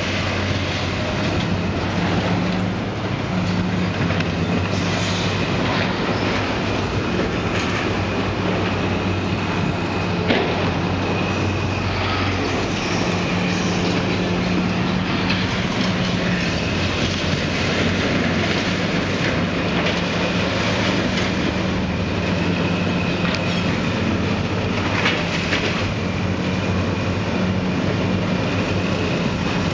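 Diesel heavy machinery running steadily with a low hum and a faint high whine, with occasional sharp metal clanks from scrap steel being handled.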